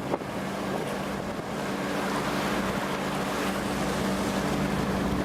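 A large fishing boat's engine running steadily with a low, even hum, under the rush of wind and sea.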